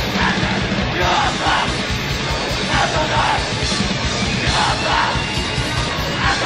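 Loud hardcore punk with harsh noise: fast, pounding drums and heavily distorted guitar and bass in a dense wall of sound, with a yelled vocal over it.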